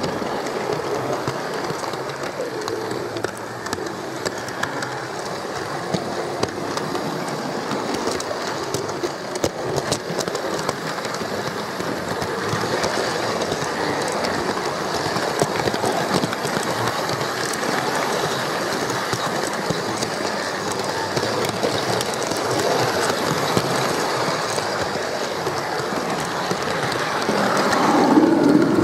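OO gauge model train running along the track, its wheels rattling and clicking over the rail joints, heard close up from on board the train. It grows louder near the end.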